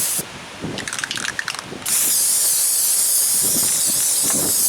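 Rust-Oleum aerosol primer spray can: a short spray burst that stops just after the start, a quick rattling about a second in, then a long steady spray hiss from about two seconds in.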